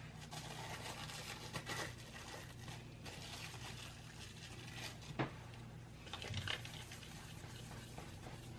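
Plastic cling wrap crinkling and rustling as gloved hands peel it back from a slab of white chocolate ganache, with a sharp tick about five seconds in and a soft thump a little later.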